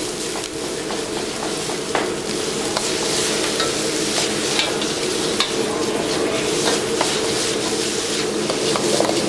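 Food sizzling in a wok over a high gas flame as a metal ladle stirs it, scraping and clinking against the pan in many short knocks. A steady low noise runs underneath.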